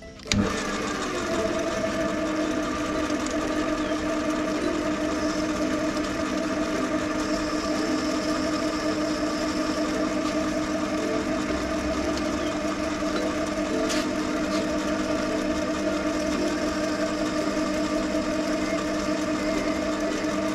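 Metal lathe switched on about a third of a second in, then running steadily with an even hum and several constant tones as its chuck spins.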